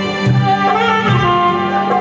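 Saxophone playing a melody of held notes that change pitch a few times, over a backing with a steady low beat.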